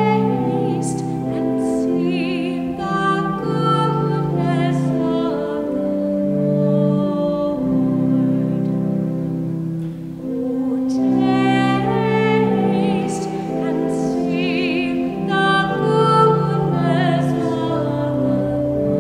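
Sacred music: a solo singing voice with vibrato over long held accompanying chords, phrase by phrase with a short break about halfway. This is the responsorial psalm sung after the first reading at Mass.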